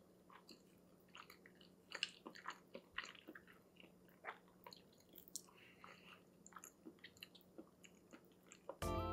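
Faint close-up chewing of a mouthful of soy-marinated soft-boiled egg, with scattered soft, wet mouth clicks and smacks. Background music comes in near the end and is the loudest sound.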